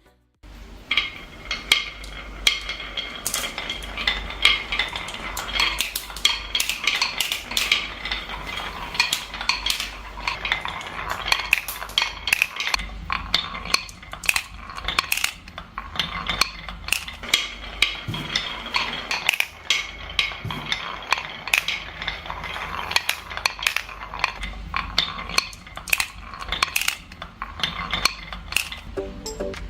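Many glass marbles rolling and clattering down a marble run, a dense, continuous stream of clicks and clinks over a low rolling rumble that starts abruptly about half a second in.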